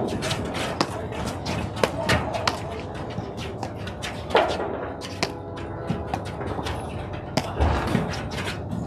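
Platform tennis rally: sharp pops of paddles striking the ball, several times about a second apart, among smaller clicks and scuffs of players moving on the court.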